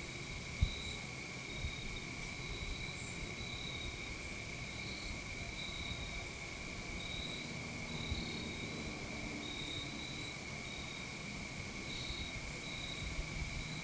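Insects chorusing: a steady high drone with shorter, higher chirps repeating about once a second over it. A single soft tap about half a second in.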